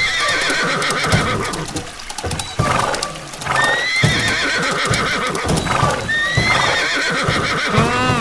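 Horse whinnying over and over, with a steady clatter of hooves clip-clopping.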